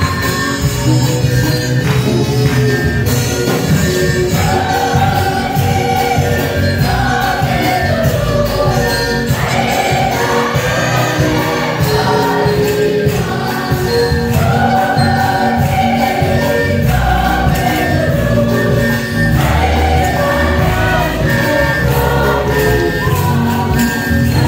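Choir and congregation singing a lively gospel hymn over an instrumental accompaniment with a steady beat.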